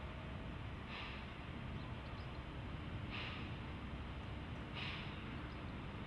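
C11 steam locomotive's exhaust chuffing slowly, four hissing chuffs roughly two seconds apart, over a steady low rumble.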